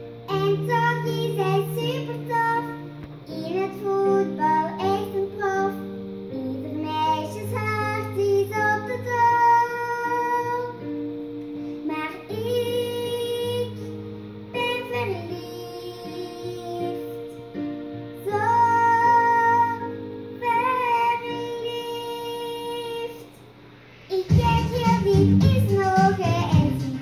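A young girl singing a Dutch pop song along to backing music, her voice carrying the melody over steady held chords. About 24 seconds in, the music briefly drops away and then comes back fuller and louder.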